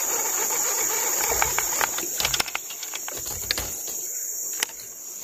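Steady high-pitched drone of forest insects, with a few sharp clicks scattered through the middle.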